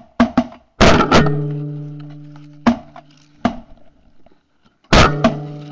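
Shotgun blasts over background music with a guitar-like tone: a few sharp shots near the start, a quick volley of three or four about a second in, single shots around three seconds in, and another pair near the end.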